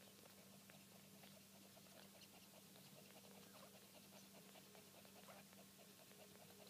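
Faint, rapid clicking and smacking of newborn Maltipoo puppies suckling at their mother, over a low steady hum.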